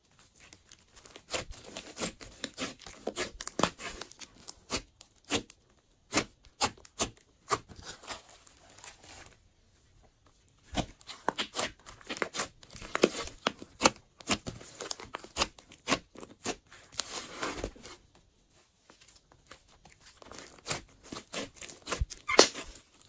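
Hands kneading and pressing glossy slime: quick, irregular sticky clicks, pops and crackles as the slime stretches and pulls apart, coming in bursts with a few short pauses.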